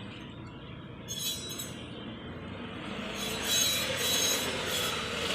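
Royal Enfield Bullet 350 rear brake drum and shoe plate turned by hand, metal scraping with a thin squeal that grows louder about three seconds in. The noise comes from a brake-shoe spring, worn shiny, rubbing inside the drum.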